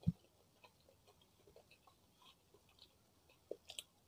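Close-miked eating: a metal spoon scooping rice with sambal off a banana leaf, with a dull thump right at the start, then faint chewing and small mouth clicks, and a few sharp clicks near the end as the spoonful goes to the mouth.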